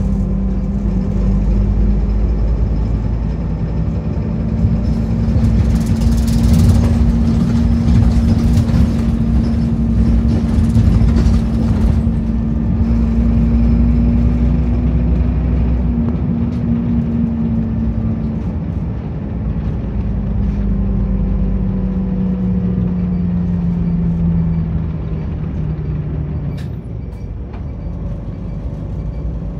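Interior sound of a city route bus on the move: engine and drivetrain hum over low road rumble. The hum holds a steady pitch, then falls in pitch and eases off in the second half as the bus slows. There is a short hiss about six seconds in.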